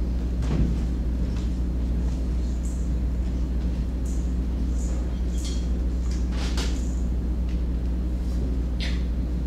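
Room tone dominated by a steady low hum, with a few faint scattered rustles and clicks.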